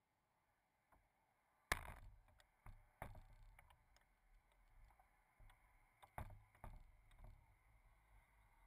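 Faint, muffled knocks and taps with a low rumble under them, the strongest about two seconds in, at three seconds, and twice around six seconds: small waves slapping the hull of a drifting RC catamaran, picked up by a camera mounted on board. No motor is heard.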